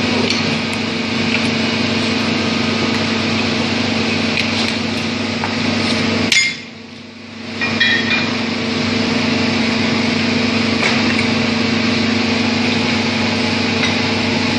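HFU-3A hydraulic underground core drilling rig running with a loud, steady hum, with scattered metallic clinks and knocks of tools and rods against the rig. The machine sound drops away sharply for about a second midway through, then returns.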